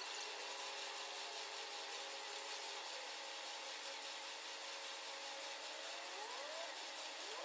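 Air-resistance flywheels of several Concept2 rowing machines whirring faintly and steadily under continuous rowing, with a couple of faint rising squeaks near the end.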